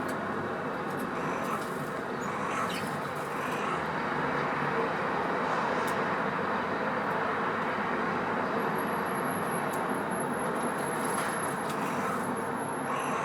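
Steady outdoor background noise of the traffic or rumble kind, swelling slightly in the middle, with a few faint clicks and a thin high whine in the second half.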